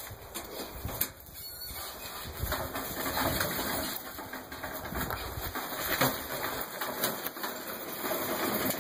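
Loaded steel garden cart being pulled over gravel and leaves, its wheels rolling and the metal trommel and gear on it rattling and clattering, busiest from about two seconds in.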